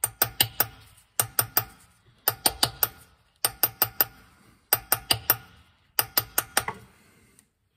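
Hammer driving a metal punch against the gearbox selector-shaft oil seal of a classic Mini, in quick bursts of three to five ringing metal-on-metal strikes about once a second, to knock the old seal out. The strikes stop near the end.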